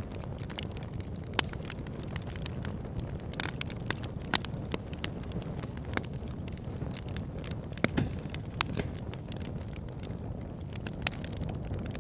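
Wood fire burning in a fireplace: a steady low rumble of flames with irregular crackles and pops from the burning logs, and a few louder snaps scattered through.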